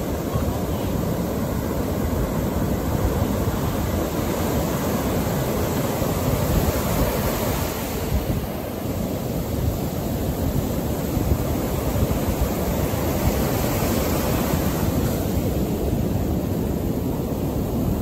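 Ocean surf washing up over the sand: a steady rush of breaking waves and fizzing foam that swells and eases slightly.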